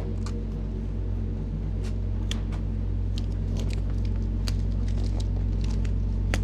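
A low, steady droning music bed with scattered soft clicks and crinkles from packaging being handled as an armchair is unpacked quietly.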